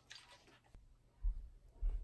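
A hand handling and pressing down on a sandwich on a wooden cutting board: a brief soft rustle near the start, then two short dull thumps about half a second apart.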